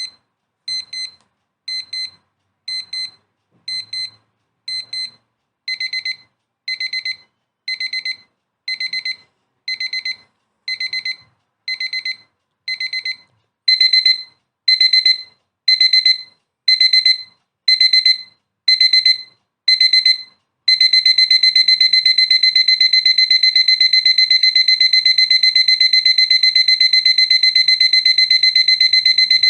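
Alarm clock beeping: bursts of rapid high beeps about once a second, growing louder twice, then running together into one unbroken beeping about two-thirds of the way through.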